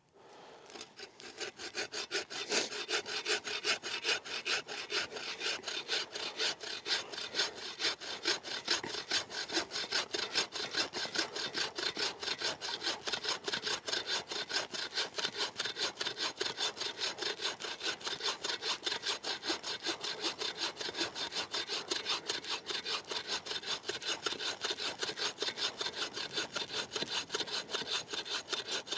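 Boreal 21 folding bow saw, fitted with a fine-toothed 21-inch bow saw blade, cutting into a thick, well-seasoned downed alder log in steady back-and-forth strokes that start about half a second in.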